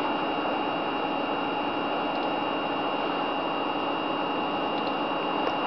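Steady whir of running computers' cooling fans, with a thin high whine held on one pitch.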